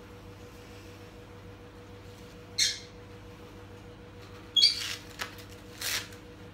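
Handling of a silicone reborn doll and its clothes: three brief, high, squeaky rustles, about two and a half, four and a half and six seconds in, over a steady low hum.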